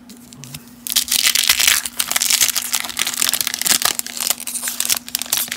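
A 1991 Topps Traded wax-paper baseball card pack being torn open by hand: loud crinkling and tearing of the wrapper, starting about a second in and going on for some four seconds.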